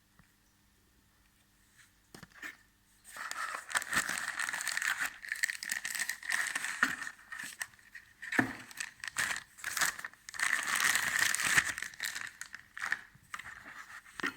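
Packaging being handled and unwrapped: crinkling and rustling that starts about three seconds in and runs in long stretches with sharper crackles, dying down near the end.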